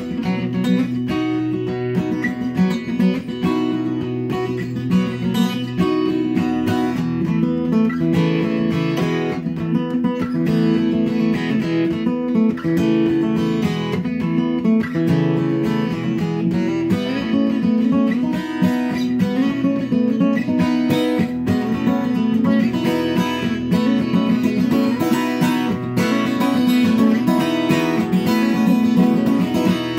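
Steel-string acoustic guitar in open E tuning, played with continuous strumming and ringing chords.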